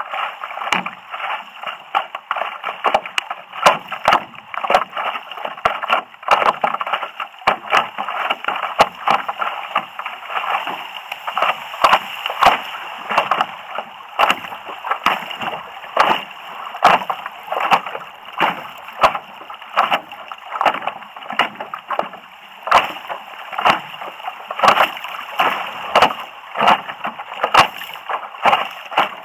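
River water slapping and splashing against a stand-up paddleboard as it glides along, with a running wash of water and frequent sharp slaps, irregular, about one or two a second.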